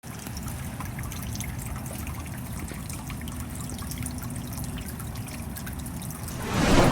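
Rain falling steadily, with water trickling and dripping in many small ticks. A louder rush of noise swells up near the end.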